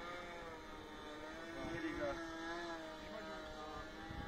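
Saito FG-21 four-stroke gas engine of a Hangar 9 Carbon Cub RC plane droning in flight overhead, its pitch drifting slowly up and down as the plane moves across the sky.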